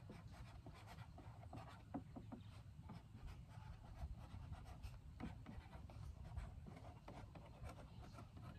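A felt-tip marker writing on a plastic gallon water jug: faint, irregular scratchy strokes.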